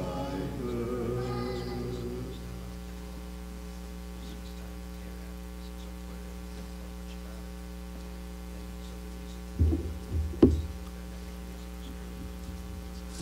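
The last of some voices singing fades out within the first two seconds, leaving a steady electrical hum from the sound system. About ten seconds in, a few loud thumps come through the lectern microphone as things are set down on the lectern.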